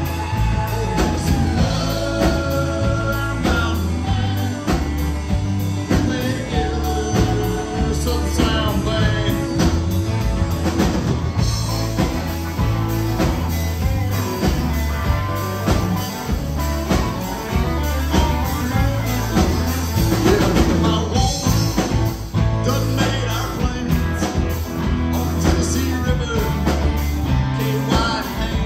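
Live rock band playing: electric and acoustic guitars, bass guitar and drums, with a steady beat.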